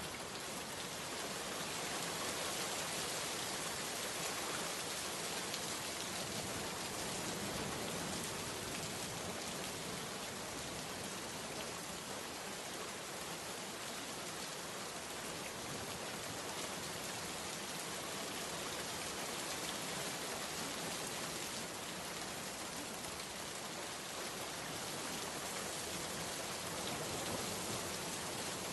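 Steady rain falling, an even hiss of many drops with no distinct pattern.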